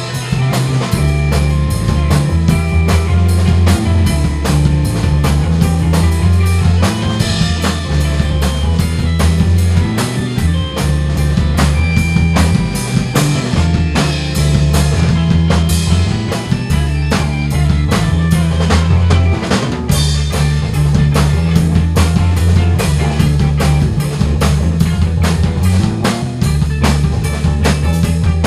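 Instrumental band music: a drum kit keeps a steady beat under a deep electric bass line, with electric piano, organ and electric guitar.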